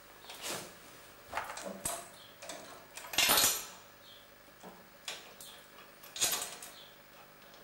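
Metal tools and steering parts of a Wolf Garten ride-on mower clinking and scraping under hand work, in about half a dozen separate clatters, the loudest a little past the middle.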